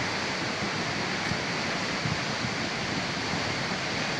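Swollen, flooding mountain river rushing past in spate: a steady, loud roar of churning water.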